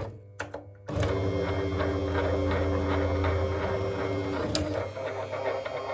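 Robotron Reiss K6418.31 pen plotter drawing: its drive motors whir and buzz steadily, with fast regular ticking, as the pen carriage moves over the paper. The sound starts about a second in, and there is a sharp click about four and a half seconds in.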